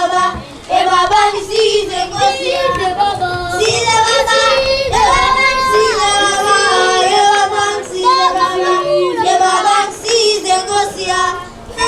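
High voices singing a melody in long held notes that glide between pitches.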